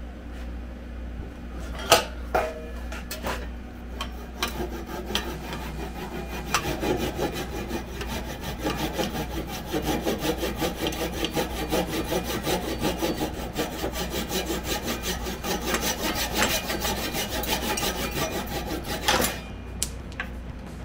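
Handsaw sawing through the protruding top of a maple dowel wedge and wooden axe handle held in a bench vise, trimming them flush with the axe head in a long run of quick back-and-forth strokes. A few sharp knocks come first, as the saw is set, and the sawing starts about four seconds in and stops shortly before the end.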